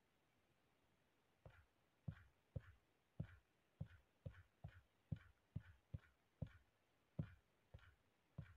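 A series of faint knocks, each a soft low thump with a light click on top, coming roughly two a second and slightly unevenly, starting about a second and a half in.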